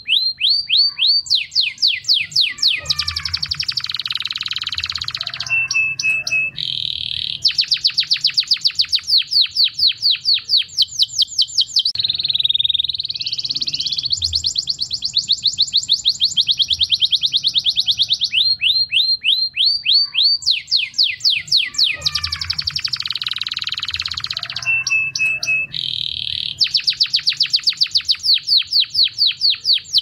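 Domestic canary singing continuously: a long song of rapid trills, each a fast run of the same high note repeated many times a second, switching to a new trill every second or two, with a few short held whistles between.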